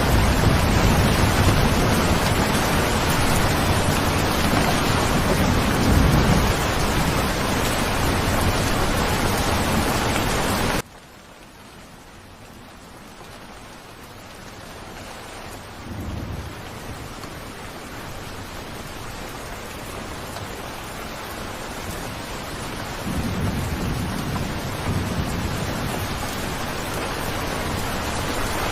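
Steady heavy rain with low rolls of thunder. About eleven seconds in, the sound drops abruptly to much softer rain, which slowly grows louder, with further low thunder rumbles later on.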